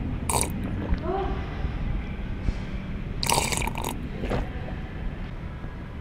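Close-up sipping and slurping of a drink from a cup, with a short slurp near the start and a longer one about three seconds in, over a low rumble.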